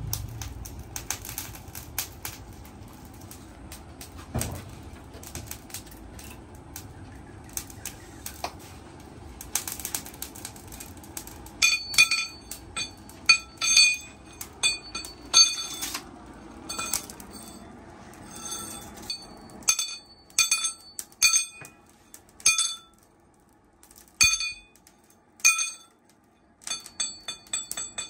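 Metal-on-metal clinks: a thin steel piece tapped against a small steel post anvil, each strike leaving a bright ring. The strikes come irregularly, singly and in short quick runs, starting about a third of the way in; before that there are only faint scattered clicks.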